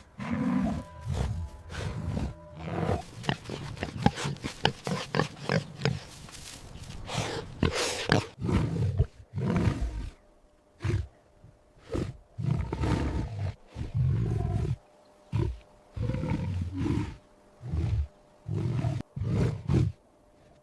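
Big cat roaring and growling in a long series of short, low bursts, coming in separate bursts with short gaps in the second half.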